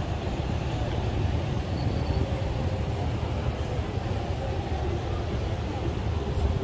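Steady low rumble of city traffic: vehicles running along a busy street.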